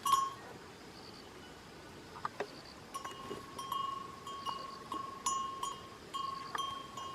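Bells on goats' necks clanking as the goats move about grazing. One loud ring comes right at the start, then from about three seconds in the bells clank again and again in an uneven rhythm, each note ringing on.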